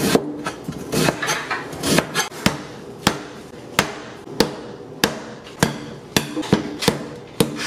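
Kitchen knife slicing fresh ginger on a plastic cutting board: a dozen or so sharp knocks of the blade hitting the board, about one every half second, slightly uneven.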